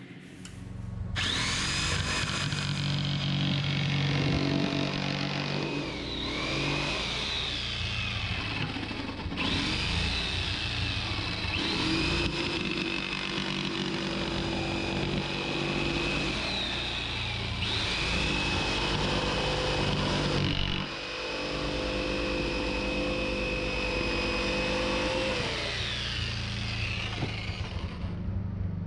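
Thickness planer running steadily with a high motor whine as spruce boards feed through. The pitch sags and recovers several times, as each board loads the cutterhead and clears it.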